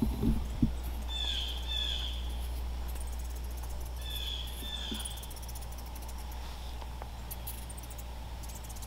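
A bird calling twice, each call a pair of short notes, about three seconds apart, over faint high insect ticking and a steady low rumble. A few soft knocks come right at the start.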